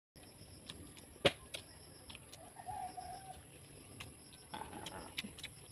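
Quiet outdoor background with a few sharp clicks and taps, the loudest a bit over a second in. Near the middle, a short wavering bird call sounds.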